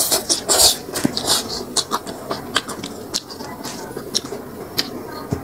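Close-miked eating sounds: a person chewing and smacking with her mouth, with many short, sharp clicks and brief hissy slurps or crunches at irregular intervals.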